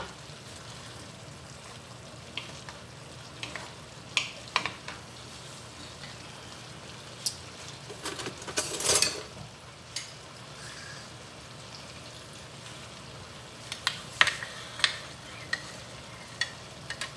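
Sliced bell peppers, carrots and onion sizzling steadily in a frying pan while being stir-fried. Short knocks and scrapes of utensils against the pan come now and then, thickest around nine seconds in and again around fourteen to fifteen seconds.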